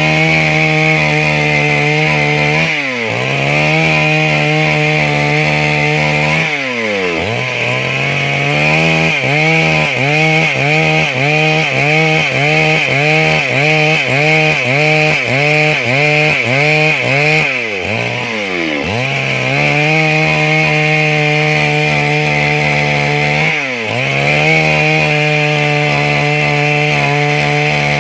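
Stihl MS 382 two-stroke chainsaw running hard, cutting wood. Its engine pitch drops sharply and recovers four times, and in the middle stretch it wavers up and down repeatedly, about once or twice a second.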